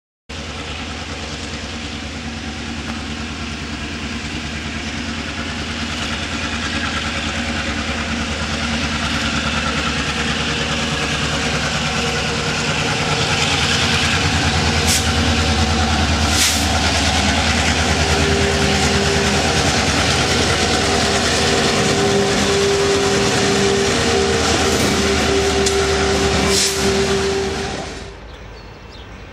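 Freight train led by a CN EMD diesel locomotive approaching and coming close, with its engine running and its wheels rumbling on the rails, growing steadily louder. A steady tone joins in past the middle, along with a few brief sharp high sounds. The sound drops off suddenly near the end.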